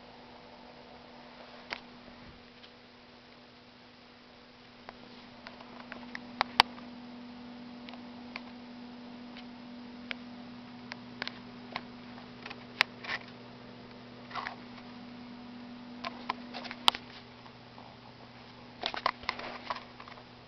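Kittens playing on a carpet: scattered light taps and scuffles, with a quick cluster of taps near the end, over a steady low hum.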